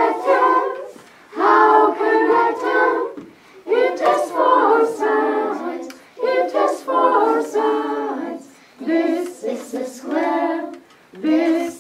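A class of young children and their teacher singing a simple shapes song together in English, in short sung phrases with brief breaths between.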